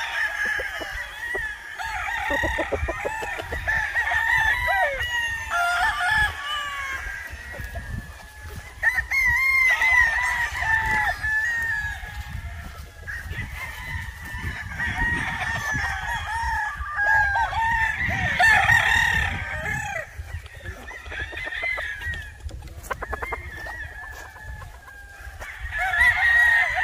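Several gamecocks crowing one after another and over each other, with clucking between the crows.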